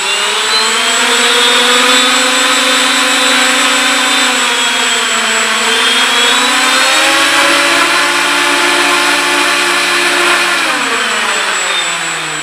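Several electric drive motors of an RC ship spinning up together and running with a steady whine. The pitch dips and shifts partway through as the throttles change to turn the ship with differential thrust, then winds down near the end.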